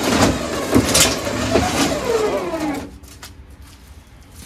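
Electric winch motor running, hauling the mower up the loading ramps, with a few knocks and a whine that falls in pitch before the winch cuts off suddenly about three seconds in.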